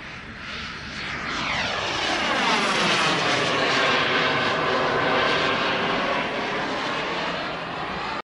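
Radio-controlled model jet making a pass over the field. Its rushing jet noise swells to a peak midway, eases off as it moves away, then cuts off abruptly near the end.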